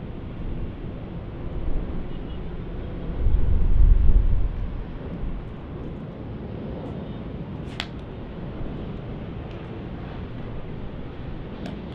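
Airbus A350-900's Rolls-Royce Trent XWB jet engines on final approach: a steady rumble, with a louder low surge about three to four seconds in. A couple of short clicks come later.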